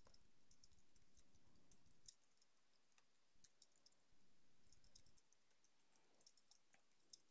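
Faint computer keyboard typing: soft, irregular key clicks.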